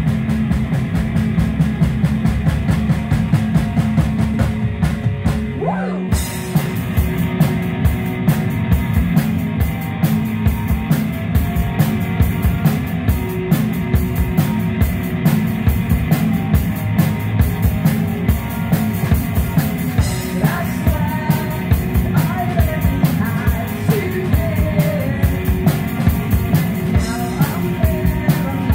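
Live rock duo playing loud: electric guitar over a drum kit keeping a steady beat. A voice sings over it in the later part.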